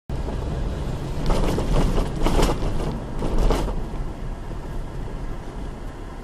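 Steady road and engine rumble of a moving vehicle, with several louder rushing swells between about one and four seconds in.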